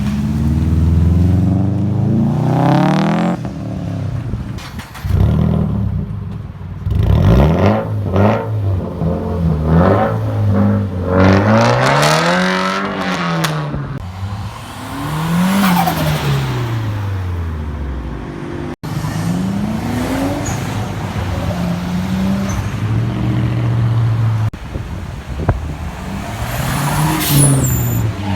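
Car engines revving and accelerating, their pitch rising and falling again and again, in several short clips joined by sudden cuts.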